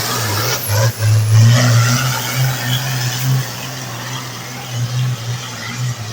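Farm tractor engine running hard under load while pulling a sled, then easing off somewhat in the second half.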